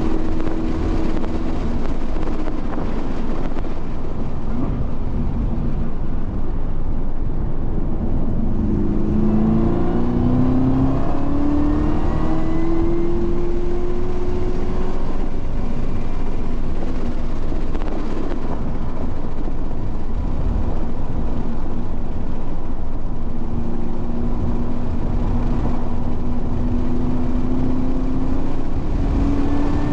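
Race car engine heard from onboard at speed on a track, over heavy wind and road rumble; its note climbs steadily twice as the car accelerates hard.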